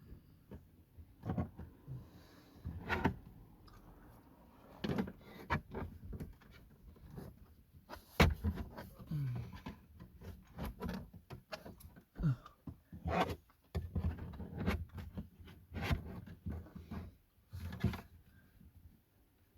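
Plastic dashboard trim around a Ford Fiesta's factory radio being pulled and pried by hand: irregular clicks, knocks and scrapes as the stubborn clips hold, with one sharp knock about eight seconds in.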